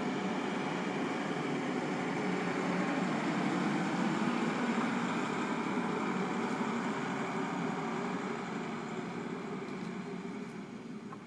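E-One Typhoon fire engine's diesel engine running as the truck drives past. It grows louder to a peak about four to five seconds in, then fades as the truck pulls away.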